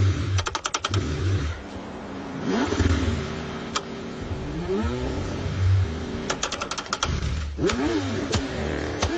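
Car engine cranking in the cold, running in uneven bursts with revs that rise and fall. There are two runs of rapid clicking, one near the start and one about two-thirds of the way through.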